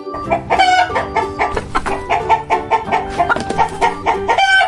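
Chickens clucking in quick short calls, over light children's background music.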